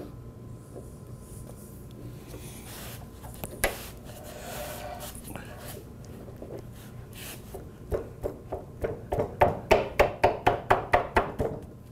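Hands handling the plywood swing arm and hardware, with a single knock a few seconds in. From about 8 s a ratchet wrench clicks in a quick regular run, about four or five clicks a second and growing louder, as the nut on a 3/8 bolt is run down on the drop-wing pivot.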